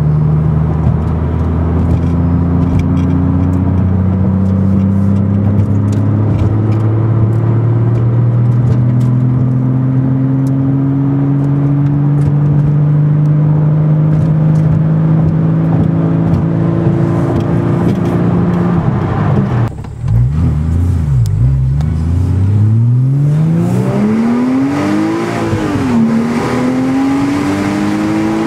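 Porsche Cayman S engine through a custom exhaust pulling at full throttle in 6th gear from about 1,000 RPM, its note rising slowly and steadily for about twenty seconds. About twenty seconds in the sound dips briefly, then the engine note falls and climbs again much more quickly, rising and falling twice.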